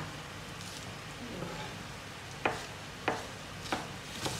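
Steady sizzle of chicken livers and gizzards frying in a pan. Over it, a chef's knife slicing leeks on a plastic cutting board gives four sharp taps in the second half, about one every half second or so.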